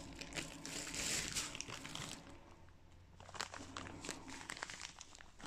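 Crinkling and rustling of bead packaging being handled while cream beads are picked out, with small clicks, in two spells: one at the start and another about three seconds in.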